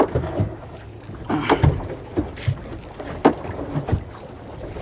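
Irregular knocks and thumps aboard a small fishing boat while a stingray net is hauled in.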